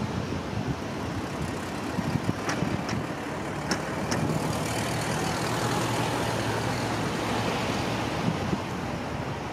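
WDP4 diesel locomotive heard from a distance, its engine droning steadily as it hauls a passenger train round a curve, with a few sharp clicks about two to four seconds in.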